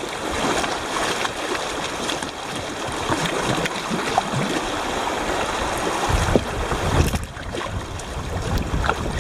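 River water rushing and splashing against a kayak moving through rough water. Wind buffets the microphone from a little past halfway.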